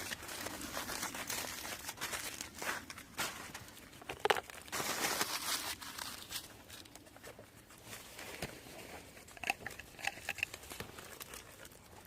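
Foil crinkling, crumpling and tearing as it is pulled open around a jacket potato baked in a campfire, with scattered clicks.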